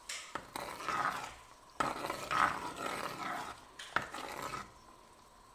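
Steel ladle stirring a thick, boiling tamarind curry in a clay pot: wet swishing and scraping with a couple of sharp knocks against the pot. The stirring stops a little after four seconds in.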